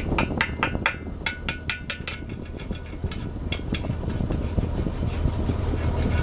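A chipping hammer taps quickly along a 5/32 in 8010 stick welding rod lying on a steel beam, knocking off flux that has gone bad from getting wet. The crisp metallic taps come fast for about two seconds, then a few more, and give way to scraping near the end.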